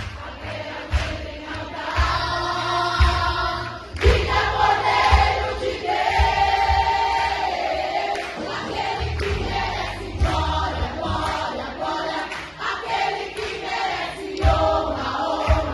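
Live gospel worship music: many voices singing together, choir-like, over a band with a steady low drum beat about once a second.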